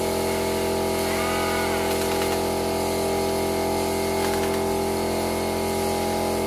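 Workshop air compressor running steadily, an even machine hum made of several fixed tones, with a couple of faint tool clicks.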